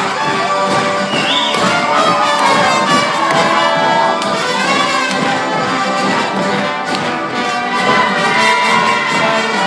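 Live acoustic band music with a horn section of trumpets and trombone playing over accordion, banjos, acoustic guitars and a resonator guitar.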